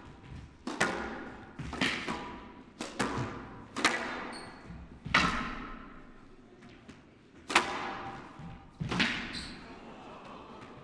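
Squash ball being struck by rackets and hitting the court walls during a rally: a series of sharp smacks, each with a short echo, coming every second or two.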